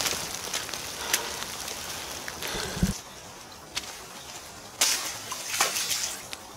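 Rain falling steadily, with wet splashing and several sharp clicks and taps. The hiss drops away about three seconds in.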